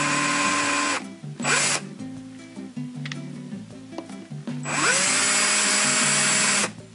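DeWalt cordless drill spinning a half-inch countersink bit into a screw hole in an aluminum mounting plate, run in short goes to cut the countersink a little deeper at a time. It runs for about a second and stops, gives a brief spurt, then after a pause of about three seconds spins up again with a rising whine, runs for about two seconds and stops.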